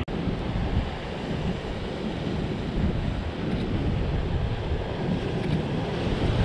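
Waves washing against a rocky shoreline, with wind buffeting the microphone in a heavy, uneven low rumble.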